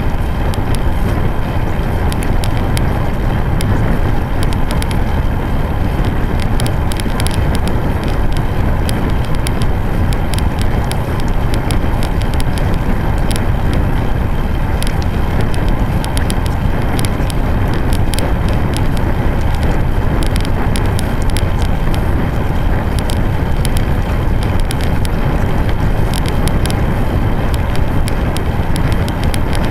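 Road bike rolling steadily along an asphalt path, heard from a camera on the bike: a constant low rush of wind on the microphone and tyre noise, with many small irregular rattling clicks over it.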